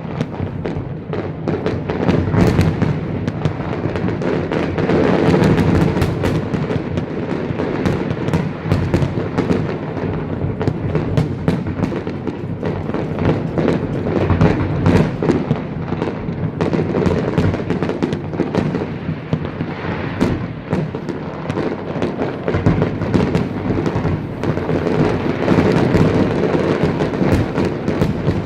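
Large fireworks display going off without a break: a dense string of sharp shell bursts and crackling over a constant low rumble of booms.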